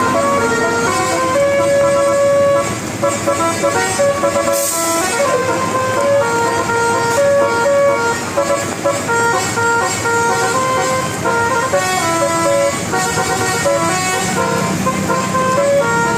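Bus telolet horn, a Basuri-type multi-tone horn, playing a melody of held notes that step from pitch to pitch. A short hiss comes about four and a half seconds in.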